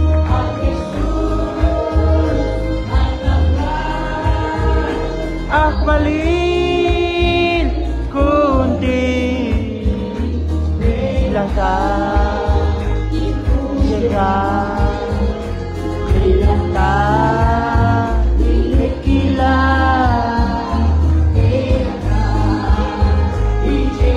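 Congregation singing a gospel worship song together with hand-clapping, over amplified music with a steady bass beat.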